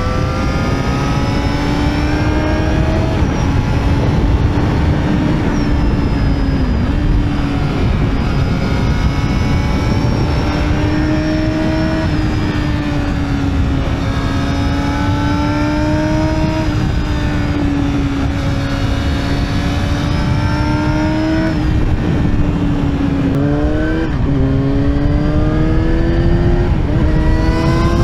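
Yamaha YZF-R6 inline-four sport-bike engine running at high revs under way. Its pitch slowly rises and falls with the throttle. Quick gear changes come a bit over three-quarters of the way through and again near the end, where the pitch drops sharply and then climbs back up. A steady rush of wind and road noise runs underneath.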